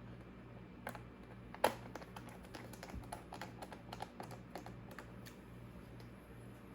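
Typing on a computer keyboard: one louder key click about a second and a half in, then a quick run of lighter key taps over the next few seconds.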